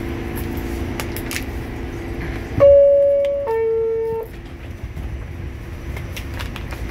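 New York City subway car's two-note door chime, a loud high tone stepping down to a lower one about two and a half seconds in, the signal that the doors are about to close. Before it comes the car's steady hum, and after it a lower rumble.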